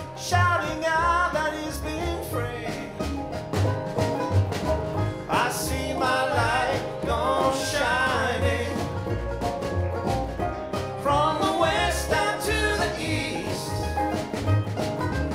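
Live acoustic country-folk band playing: acoustic guitar, mandolin, banjo, upright bass and snare drum, with a voice singing over it.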